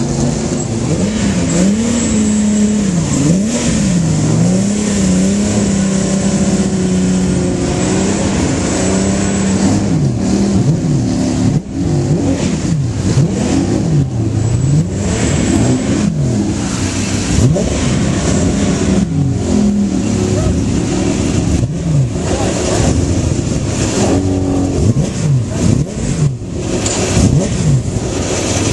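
Several racing car engines idling together, with their throttles blipped over and over so the pitch jumps up and falls back many times, the revs of different cars overlapping.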